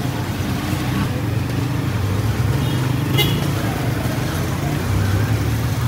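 Road traffic, with a vehicle engine running steadily and one short, high-pitched sound about three seconds in.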